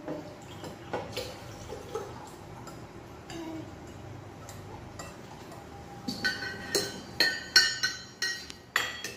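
Wine glasses clinking: a quick run of sharp, ringing taps in the last three seconds, with a few quieter clicks before.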